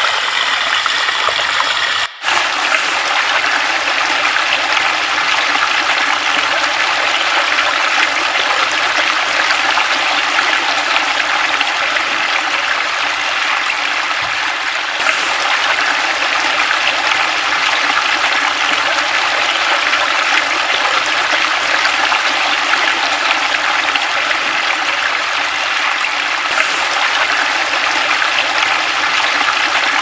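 Water running steadily over the rock cascades of a garden pondless stream and waterfall, a constant splashing rush that cuts out for an instant about two seconds in.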